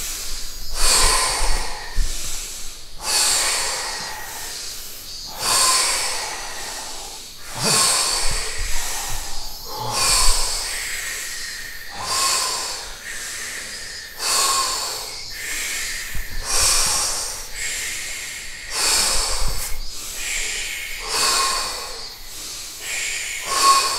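People doing deep, fast rhythmic breathwork breathing, the power-breathing phase of a breath-hold round: loud breaths in and out repeating about once every two seconds.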